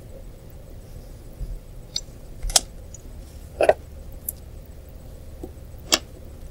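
Hand and pencil handling paper on a desk: a few sharp taps and scrapes, the loudest about two and a half, three and a half and six seconds in, over a faint steady low hum.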